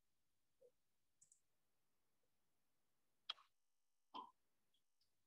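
Near silence with a few faint computer mouse clicks, the two clearest about three seconds in and a second apart.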